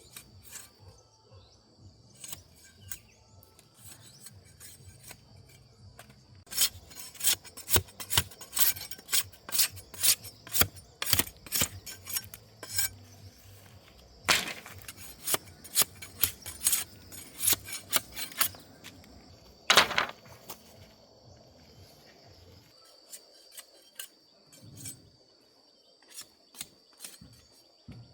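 Hand work on a hard material: irregular sharp scraping and clicking strokes, several a second, starting about six seconds in and stopping around twenty seconds in, over a steady high hum.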